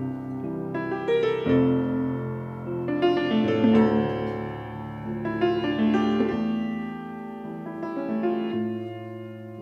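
Piano playing the slow instrumental introduction to a Portuguese fado song: sustained chords with a melody over them, swelling in the middle and easing off toward the end.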